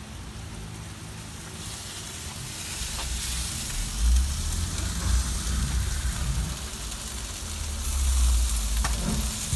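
Ribs and chicken sizzling on the racks of an open cabinet smoker, a steady hiss that grows louder about a second and a half in. A low rumble joins it in the second half.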